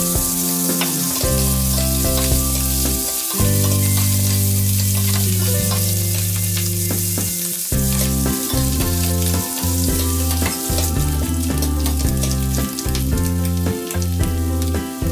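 Garlic cloves and sliced whelks sizzling in melted butter in a stainless steel frying pan, with a steady hiss and a spatula clicking and scraping as it stirs. Low sustained music tones play underneath.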